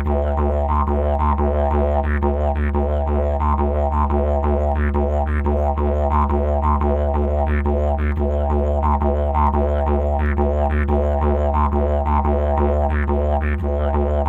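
Background music: a didgeridoo droning steadily, with a pulsing rhythm in its overtones about twice a second.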